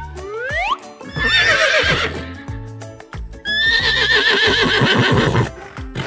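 Two horse whinnies, the second one longer, over background music with a steady beat. A short rising swoop comes just before the first whinny.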